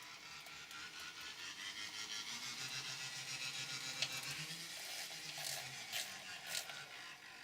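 Trix 16271 N-gauge model locomotive running on the track: a fast rippling clatter over a low motor hum, growing louder over the first few seconds and easing off near the end. A few sharp clicks come about four and six seconds in.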